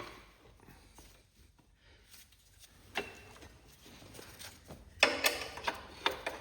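Scattered sharp metal clicks and knocks of tools and bolts against the Cub Cadet transmission case and frame as the bolt holes are brought into line, with a burst of rapid clattering about five seconds in.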